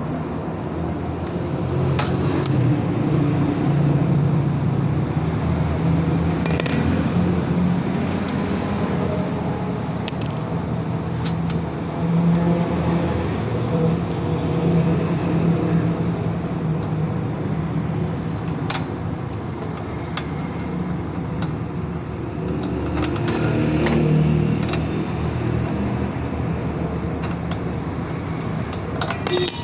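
Motorcycle engine running close by, its level swelling and easing a few times, with short metallic clicks of spanner work on top.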